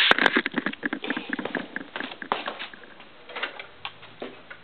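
Two-stroke Wisconsin Robin engine on a Snapper mower being pull-started: a burst of sharp, irregular pops and clicks that thin out and fade over about three seconds, followed by a faint low hum.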